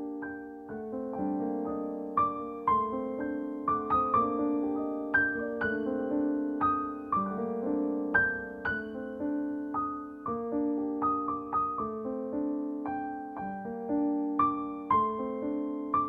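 Piano music: a melody of struck notes over lower held notes, each note fading after it is struck.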